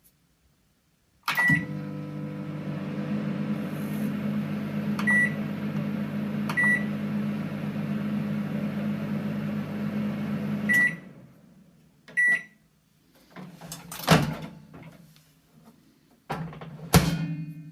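Teka microwave oven starting with a click and a beep, then running with a steady hum for about nine seconds, with short beeps now and then. The hum stops with a beep, another beep follows, then two loud knocks with some clatter near the end.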